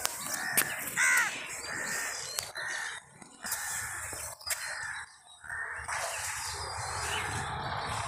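Crows cawing in a run of short harsh calls over the first six seconds, the loudest about a second in, then falling quiet.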